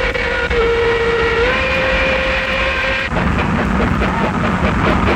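Steam locomotive whistle blowing one long steady note, cutting off sharply about three seconds in, over the rushing rumble of the train passing at speed.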